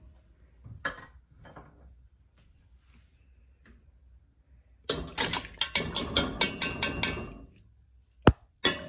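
Rinsed split peas tipped from a metal strainer into a pot of water, then a rapid run of sharp taps, about five a second for a couple of seconds, as the strainer is knocked against the enamel pot's rim to shake the last peas out. One more sharp click near the end.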